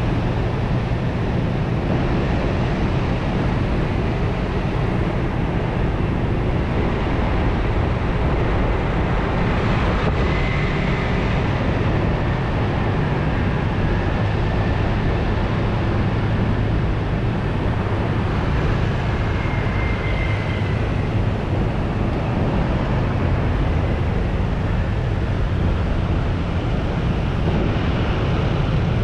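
Motorcycle being ridden in slow city traffic among other scooters: its engine and the road noise run steadily.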